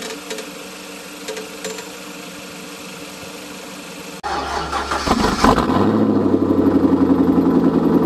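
About four seconds in, a loud engine sound starts up abruptly and settles into a fast, even throb. It is the engine-start sound of the channel's logo intro, laid over a fade to black, not the car's own engine.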